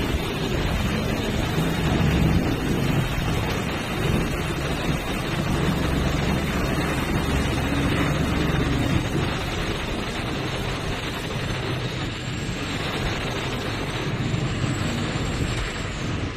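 Steady low machinery rumble from a construction site, with a hum that is strongest in the first half, mixed with wind buffeting the microphone.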